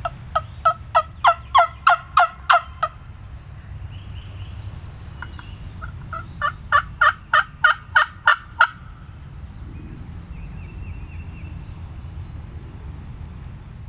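Hen-turkey yelping on a turkey call: two runs of about nine or ten sharp, evenly spaced yelps, about three a second, the second run starting about six seconds in. Each run lasts about two and a half seconds.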